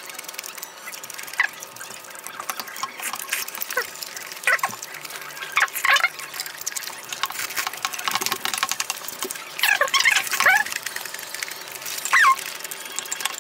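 Eating sounds: chewing, smacking and slurping of spoonfuls of rice and stew, with chopsticks and spoons clicking against bowls. About half a dozen short squeaky slurps stand out over the clicking.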